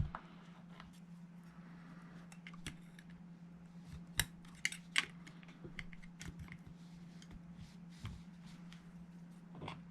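Scattered small clicks and light metal-on-metal ticks of a tool and parts as the hammer pin is pushed out of a GHK G5 gas blowback airsoft rifle's fire control group while its spring ends are held up. The sharpest clicks fall right at the start and around the middle.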